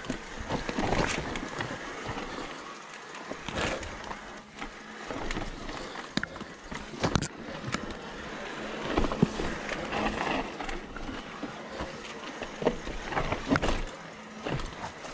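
Mountain bike rolling down a rocky trail: tyres crunching over stones and gravel, with irregular knocks and rattles from the bike over bumps.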